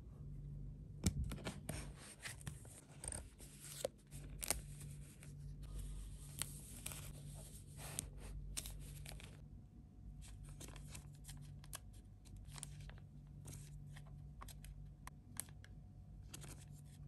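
Purchased items and their packaging being handled and unwrapped close to the microphone: rustling and tearing for the first half, then a scatter of small clicks and taps. A faint low hum runs underneath.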